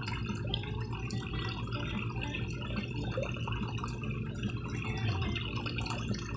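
Pond water trickling and dripping steadily, with many small splashes and droplets.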